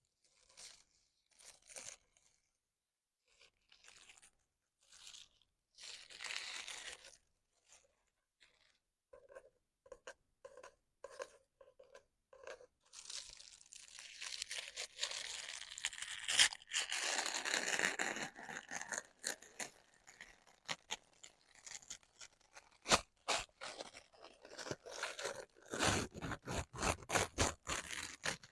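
Book mail packaging and paper handled close to the microphone: scattered short rustles and taps, then a longer stretch of tearing and crinkling from about halfway, and quick crackling near the end.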